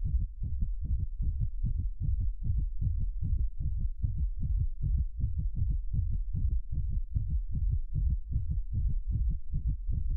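A low, rapid, even throbbing pulse, about five beats a second, that runs steadily without change.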